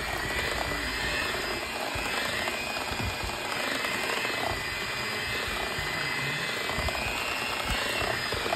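Electric hand mixer running steadily with a motor whine, its beaters churning cream cheese batter in a stainless steel bowl as an egg is beaten in.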